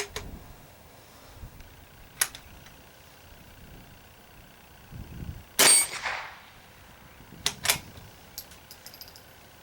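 A single .22 rimfire shot from a single-shot bolt-action rifle (a Marlin-made J.C. Higgins Model 103.18), a sharp crack about halfway through. Sharp metallic clicks of the bolt being worked come before and after it, with a few light ticks near the end.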